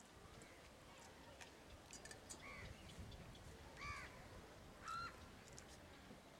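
A crow cawing faintly, three short caws about a second apart, starting a couple of seconds in.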